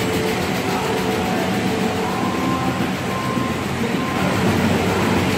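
Conveyor belts and packing machinery of a tomato grading and packing line running steadily: a dense, constant mechanical noise with a few faint held tones.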